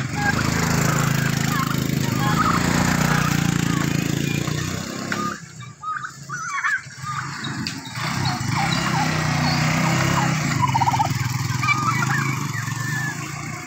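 Domestic turkeys calling, short sharp calls scattered through, over a steady low rumble that drops away for a moment about halfway through.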